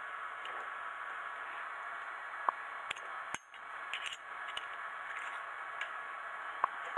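A few light metallic clicks and taps as small brake caliper parts are handled and fitted by hand, over a steady hiss.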